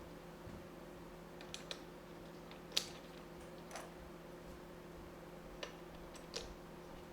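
Scattered light clicks and taps of plastic Lego pieces being handled and pressed together, about half a dozen, the sharpest nearly three seconds in, over a faint steady hum.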